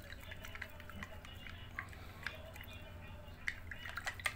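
Faint wet swishing and small scattered clicks of a stick stirring mica violet paint and thinner together in a glass jar, the stick tapping and scraping the glass, over a low steady hum.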